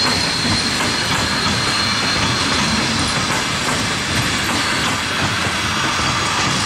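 Passenger coaches of a long train rolling past close by, a steady loud noise of wheels running on the rails.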